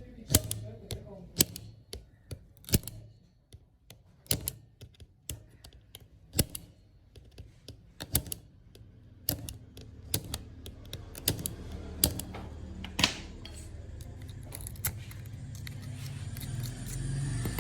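Irregular sharp clicks and taps of small repair tools working on a phone, with a low hum building toward the end.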